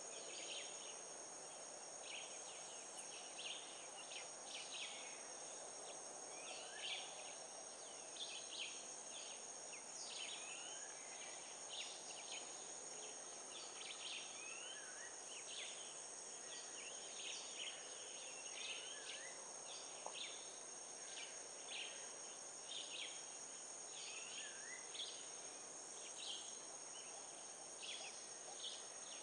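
Steady high-pitched insect drone with a scatter of short bird chirps, about one or two a second.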